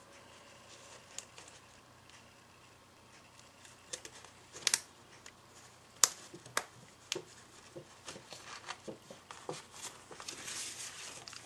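Cardstock and small metal brads being handled. The first few seconds are quiet, then scattered light clicks and taps start about four seconds in, with a stretch of paper rustling near the end.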